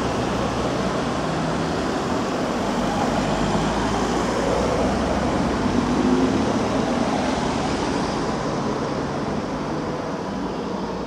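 Street traffic: cars driving past through a junction at low speed with a steady engine and tyre noise. One car passes closest, loudest about six seconds in.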